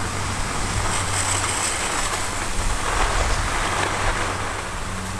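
Steady rushing noise of wind on the microphone and skis sliding over packed snow, with a low steady hum underneath.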